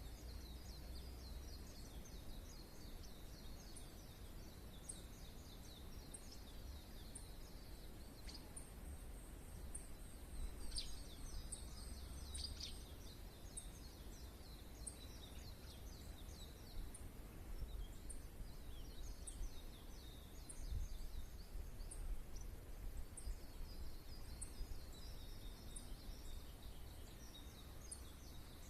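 Wild songbirds singing: rapid, chattering high-pitched phrases that come and go, busiest around the middle and again near the end. Behind them a thin, very high note repeats about every three-quarters of a second.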